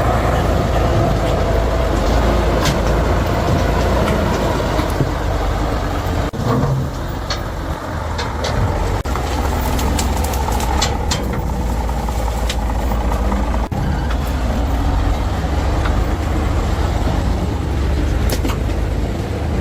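Heavy logging truck running: a steady, loud low engine rumble with scattered knocks and rattles.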